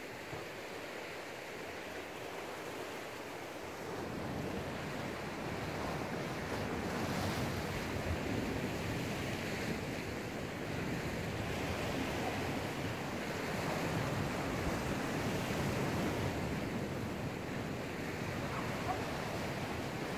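Sea surf washing against a rocky shore, with a steady rush of backwash that swells louder about four seconds in and again later, and wind buffeting the microphone.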